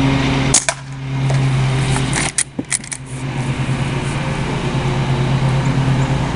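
An Umarex Legends Cowboy lever-action CO2 BB rifle is fired with a sharp crack about half a second in. A quick run of clicks follows just over two seconds in, typical of the lever being cycled to eject the shell. A steady mechanical hum runs underneath throughout.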